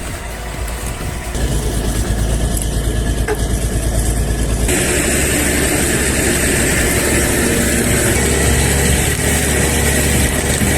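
Engine of a TT-4 tracked logging skidder running steadily under load while hauling logs through snow; the sound changes abruptly twice, about a second and a half and five seconds in.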